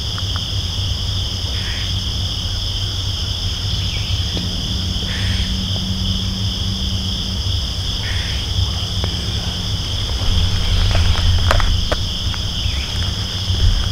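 Steady chorus of crickets and other insects in two unbroken shrill bands, over a low rumble. A few sharp clicks and rustles come near the end as the hunter shifts and handles his gear in the treestand.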